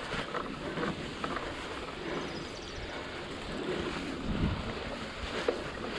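Mountain bike rolling along a wet dirt trail: a steady rush of tyre and wind noise on the microphone, with a few short rattles and knocks from the bike.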